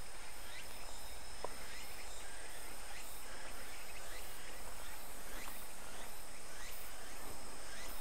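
Crickets and other grass insects chirping steadily: a continuous high trill with a regular pulsing chirp over it.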